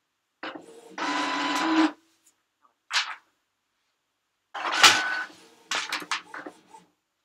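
Printer mechanism working in short bursts: a whirring pass of about a second and a half with a steady motor whine, a brief burst, then a louder whir with a sharp click followed by a string of quick clicks and ticks near the end.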